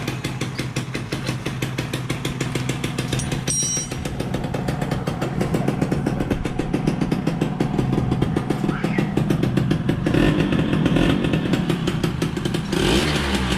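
Freshly overhauled SS110 motorcycle engine, rebuilt with a full set of new bearings, catching and running with a steady rapid putter. It gets a little louder about ten seconds in.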